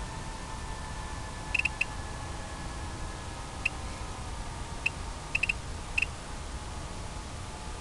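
Faint steady whine of electric RC plane motors and propellers, falling slightly in pitch. Over it come short, high electronic beeps: three quick ones about a second and a half in, single beeps near four and five seconds, and another quick three followed by one more around six seconds.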